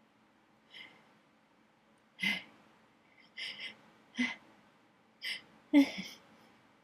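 A person's short, sharp catching breaths and sniffs as a sneeze builds, about seven in all; the loudest, near the end, has a brief voiced catch. The nose is irritated by attic dust.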